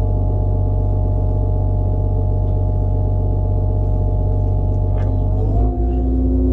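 Heavy logging machine's diesel engine running steadily, heard from inside its cab: a deep hum with a steady droning note over it. Near the end the note shifts and the low hum gets heavier, as the engine's speed or load changes.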